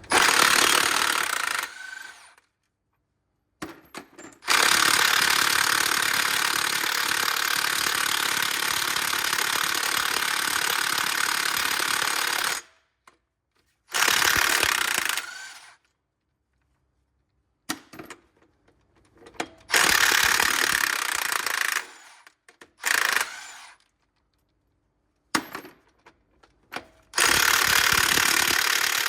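Impact wrench hammering on a flywheel bolt in repeated runs, the longest about eight seconds, with pauses between tries. The bolt stays tight and does not break loose.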